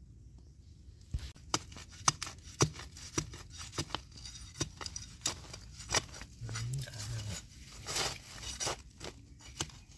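A small flat-bladed metal digging tool scraping and jabbing into dry sandy soil and leaf litter to dig out a termite mushroom. It comes as quick, irregular scrapes and taps that begin about a second in.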